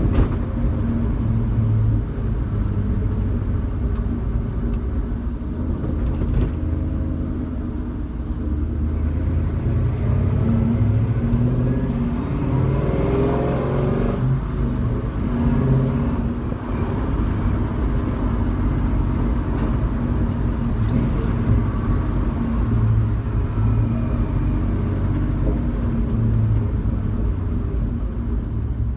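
1966 Jeep Wagoneer on the move, heard from inside the cabin: a steady engine rumble under road and tyre noise. The engine note rises and falls around the middle of the stretch.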